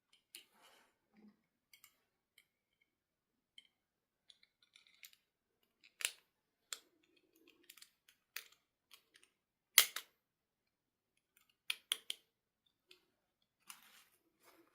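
Scattered small clicks and taps from hands handling small objects, with a sharp snap just under ten seconds in that is the loudest.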